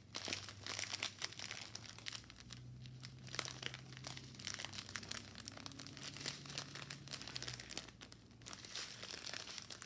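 Small clear plastic bags of diamond painting drills crinkling as they are handled and shuffled, an irregular run of crackles with a brief lull about eight seconds in.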